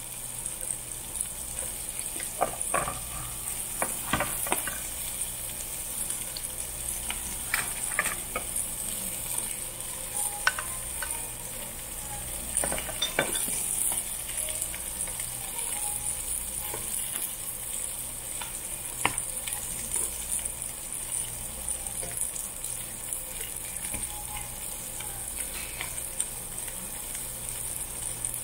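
Pork belly slices sizzling steadily on a charcoal-fired tabletop grill plate, with scattered clicks and scrapes of metal tongs as the meat is moved and turned.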